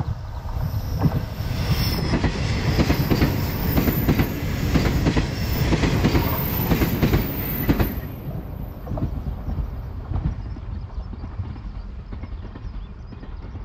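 JR 381 series electric train passing close by, its wheels clacking rapidly over rail joints. The sound builds about a second in, is loudest for several seconds as the carriages go past, then fades away after the last car.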